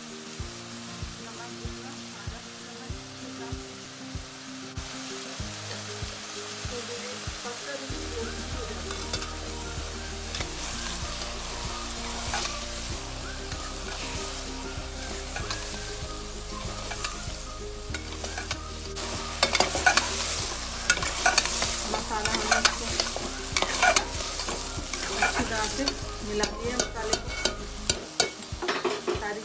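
Ridge gourd pieces stir-frying with browned onions and spices in a metal pot, sizzling, while a metal spoon scrapes and clinks against the pot. The stirring gets louder and busier in the second half.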